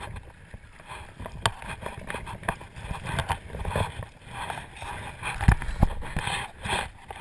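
Wading through shallow water: irregular splashing and sloshing steps, with two heavier thumps about five and a half seconds in.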